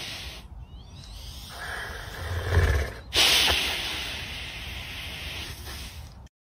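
Boxer dog breathing hard and snorting through its nose while holding a rubber ball in its mouth, with a sudden loud snort about three seconds in.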